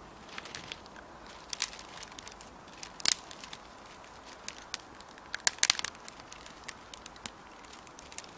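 Newly lit campfire of split birch logs on dry grass and bark tinder crackling, with irregular sharp pops, the loudest about three seconds in and a quick cluster around five and a half seconds in.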